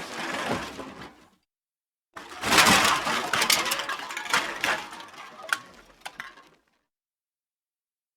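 Car crash sound effects: the tail of one crash fades out in the first second, then after a short silence a second crash starts with a loud impact and runs on for about four seconds as crunching and breaking, ending in a few scattered clinks of falling debris.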